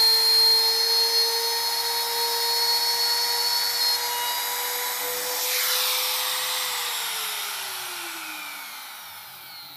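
Compact trim router running at full speed with a steady high whine as it cuts a groove through the HPL laminate into the plywood beneath, then is lifted out of the cut at the junction with the cross groove. Near the end the motor is switched off and its whine falls steadily in pitch as the bit spins down.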